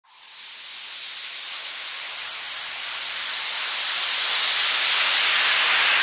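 Sound-effect rush of hissing noise. It swells in within the first half second, gets louder about two seconds in, and slowly darkens as its brightest part sinks in pitch, like a long, slow whoosh.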